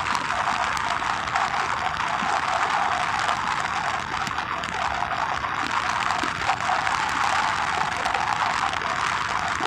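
Steady rushing noise of wind and tyres as a bicycle rolls fast along an asphalt road.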